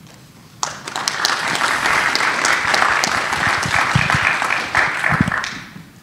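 Audience applauding, starting about half a second in and dying away near the end.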